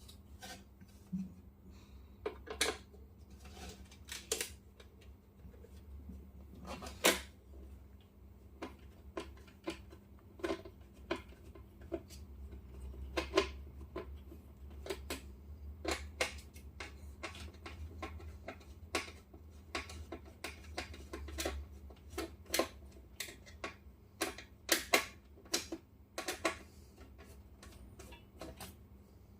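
Hands unpacking a diecast scale model car from its box and plastic packaging: irregular clicks, taps and rustles of plastic and cardboard, a few sharper knocks among them.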